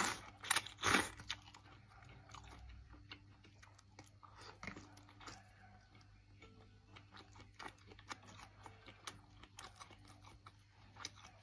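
A person chewing food close to the microphone: soft, irregular wet clicks and crunches, with two louder bites in the first second.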